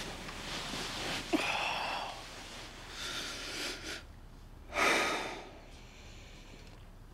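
A man crying quietly: three ragged breaths and sniffs, the loudest about five seconds in.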